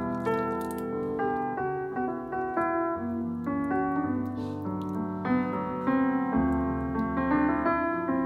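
Background piano music: a light melody with chords.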